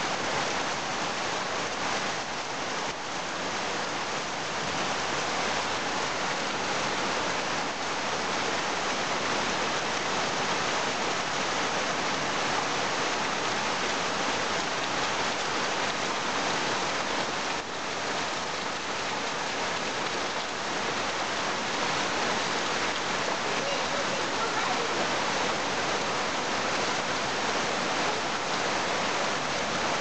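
Heavy rain pouring down in a steady, unbroken hiss.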